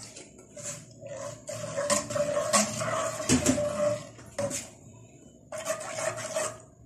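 A metal spoon stirring thick sago-and-milk pudding mixture in a saucepan, mixing in green food colouring: a run of irregular scrapes and knocks of the spoon against the pan.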